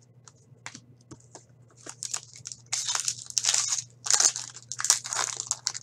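Foil wrapper of a trading-card pack being torn open and crinkled by hand, in quick crackling bursts from about two seconds in. Before that, a few light clicks as the cards are handled.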